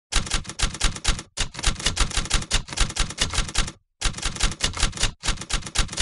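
Typewriter keys clacking in quick runs of about six or seven strokes a second, broken by short pauses about a second in and about four seconds in. The sound is an edited-in effect that starts and stops abruptly out of dead silence.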